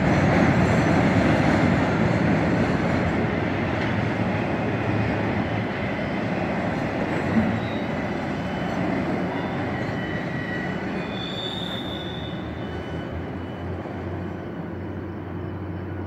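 Double-stack intermodal freight train's cars rolling across a steel truss bridge. The rumble and rattle fade steadily as the end of the train passes, with a brief high wheel squeal about two-thirds of the way through.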